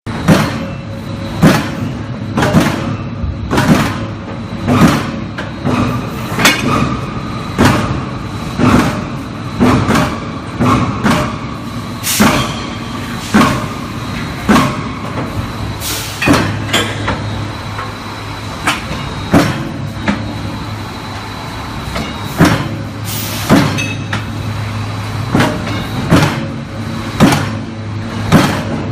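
Automatic refractory brick press running: a steady low machine hum broken by sharp knocks, about one a second, as it cycles through forming fire bricks.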